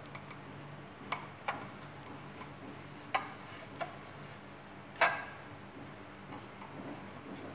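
An upturned cup pressed down through a slice of bread onto a plate, its rim knocking on the plate in about five sharp taps, the loudest about five seconds in, over a faint steady hum.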